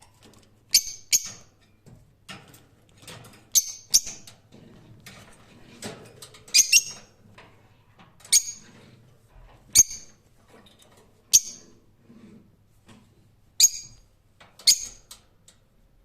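Lovebird giving short, sharp, high-pitched chirps, about a dozen spread irregularly, some in quick pairs, with fainter chatter between them.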